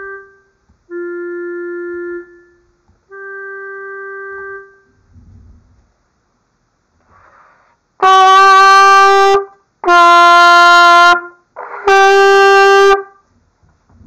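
Three softer reference notes sound first, high, lower, high. Then a trumpet plays the same three notes loudly, A, G, A, each held for about a second with short breaths between.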